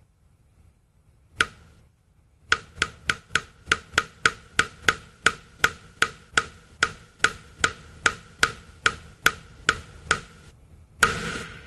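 Liquid drips plinking into a puddle of spilled milk: one drip, then a steady run of about three to four drips a second, each a short sharp plink. A short, louder rush of noise follows near the end.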